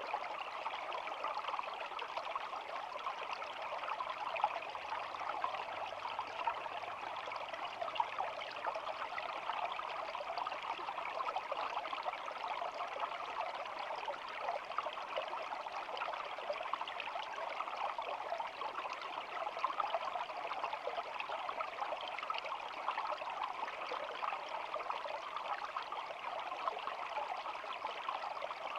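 Shallow stream flowing, a steady babbling rush of water with fine trickling and splashing.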